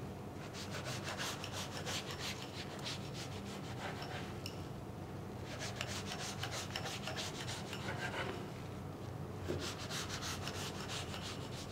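Kitchen knife sawing through a stack of dry phyllo pastry sheets: quick rasping back-and-forth strokes in three runs with short pauses between them.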